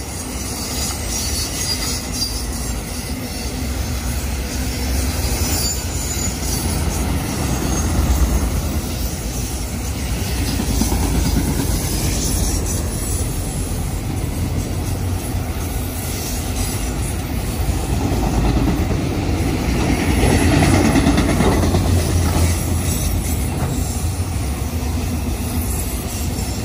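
A train rolling past on the rails: a loud, steady rumble of wheels and cars on the track.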